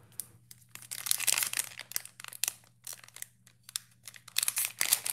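Foil wrapper of a football trading-card pack crinkling and tearing as it is torn open by hand, in irregular crackly bursts with a lull in the middle and the loudest crinkling near the end.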